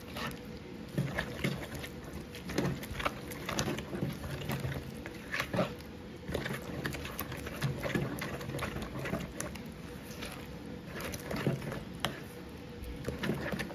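Wooden spoon stirring a thick, wet grated-cassava batter in a plastic bowl: irregular scrapes and soft knocks of the spoon against the bowl.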